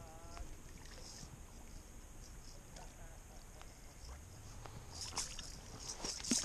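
Hooked lake trout splashing and thrashing in shallow water at the shore, the splashes starting about five seconds in and growing louder near the end.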